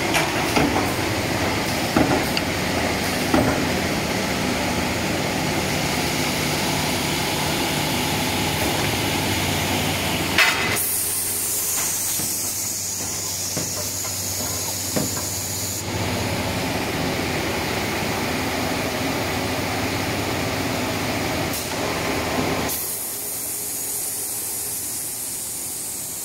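Automatic finger-joint shaper line running: a steady machine hum with a few sharp knocks. About ten seconds in, and again near the end, it changes to a steady hiss, typical of the line's compressed-air pneumatics.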